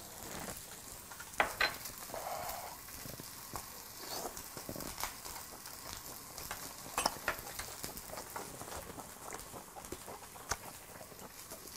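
Korean beef steaks sizzling faintly on a griddle pan over a portable gas burner, with a few sharp clicks and taps scattered through.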